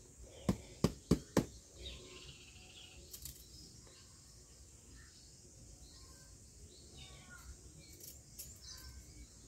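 Four sharp knocks in quick succession about half a second in, from arrowroot corms being handled over a basket and peeled with a knife. Faint bird chirps and a steady high hiss run underneath.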